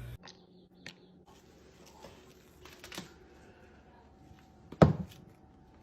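A few faint clicks and taps, then a sharp knock about five seconds in.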